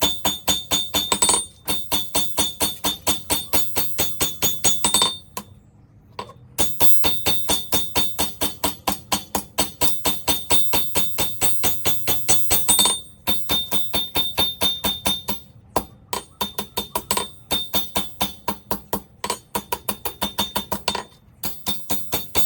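Hand hammer striking hot steel on an anvil in fast, even blows, about five a second, with a bright metallic ring. The blows come in runs of a few seconds, broken by short pauses, the longest about five seconds in.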